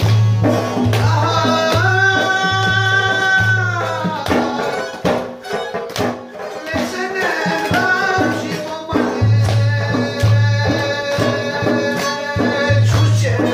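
Live folk music: a drum beats a steady low rhythm under long held melody notes. The drum drops out for a few seconds in the middle and comes back.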